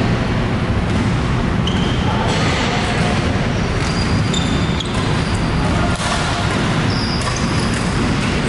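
Badminton play in a sports hall: several short shoe squeaks on the court floor and racket strikes on the shuttlecock, over a steady low rumble of hall noise.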